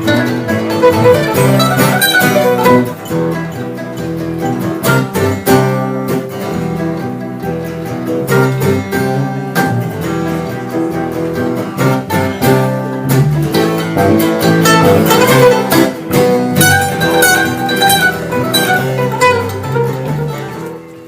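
Bluegrass-style string band music with guitar and mandolin picking.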